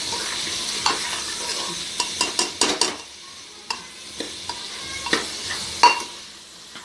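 Metal ladle stirring and scraping black chickpeas and spice masala in a pressure cooker while the mix sizzles in hot mustard oil. A quick run of sharp ladle clicks against the pot comes about two to three seconds in; after that the sizzle is fainter, with single knocks of the ladle on the pot, the loudest near the end.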